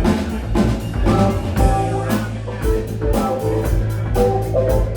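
Live rock band of electric guitar, bass, drum kit and keyboards playing, with a steady bass line under even cymbal strokes about four a second.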